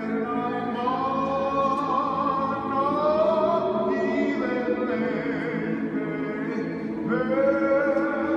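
Men's choir singing a cappella: several voice parts holding chords in harmony and moving between them, swelling louder about three seconds in and again near the end.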